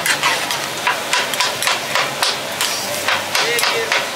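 Two metal spatulas clacking and scraping on a flat-top griddle as sliced mushrooms are chopped and tossed, in quick sharp strikes about three a second.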